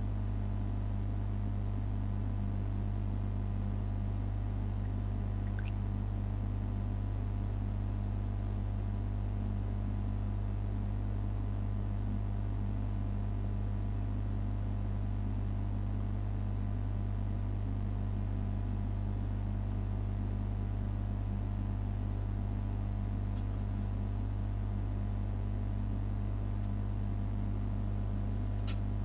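Steady low hum with background hiss, unchanging throughout, with a faint click about six seconds in and a few sharper clicks right at the end.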